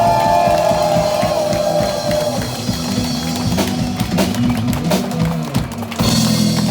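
Rock band playing live, a drum kit beating under a held chord, with gliding melodic lines in the first couple of seconds.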